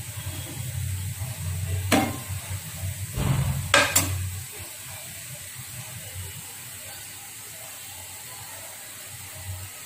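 Egg masala gravy cooking in a non-stick pan while a spatula stirs it, with sharp clinks of a utensil against the pan about two seconds in and twice near four seconds. After that the pan goes on with a quieter, steady sizzle.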